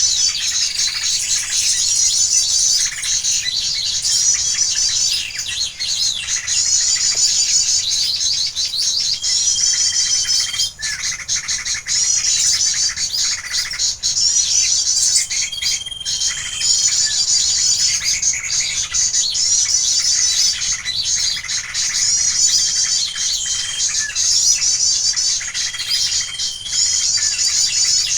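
Bird-call recording played as a lure for glue-stick bird traps: dense, rapid, high-pitched chirping and twittering of small songbirds, steady and loud throughout, with a few short flat whistles scattered through it.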